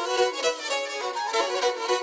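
Black Sea kemençe bowed in a quick instrumental folk tune, with fast-changing notes sounding on more than one string at a time.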